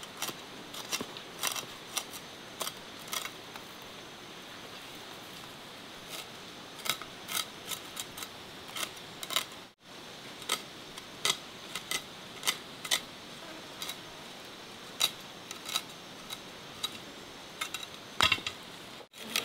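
Irregular light clicks and taps, often several a second, over a steady high hiss; the sound drops out briefly about halfway through.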